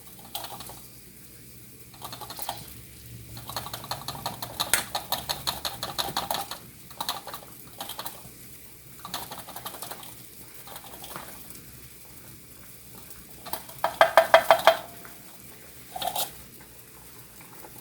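A kitchen utensil scraping and clinking against a bowl in short, uneven bursts as ground pork-rind crumbs are scooped out to weigh an ounce. There is a quick run of light ticks early on, and a louder burst of rubbing strokes near the end.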